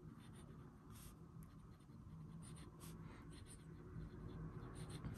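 Faint scratching of a fountain pen's black steel nib on paper, in short irregular strokes as a line of handwriting is written.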